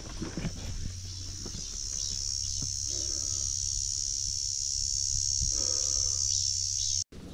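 Cicadas buzzing in a steady, high drone that swells about two seconds in, with a few footstep scuffs in the first second; the sound cuts off abruptly near the end.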